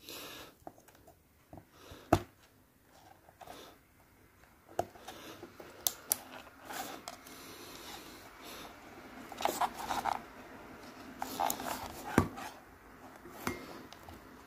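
Handling noise from a plastic model railway point and a Peco PL-10 point motor being fitted together by hand: scattered small clicks and rustles of plastic and wire, with sharper clicks about two seconds in and about twelve seconds in.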